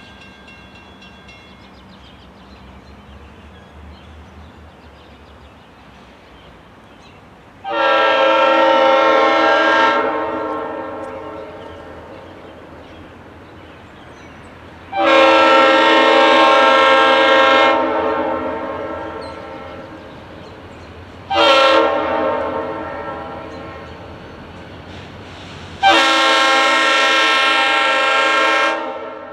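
Diesel locomotive air horn sounding the grade-crossing signal, long, long, short, long, as a freight train approaches. Each blast is a chord of several steady notes, and a faint low rumble runs underneath.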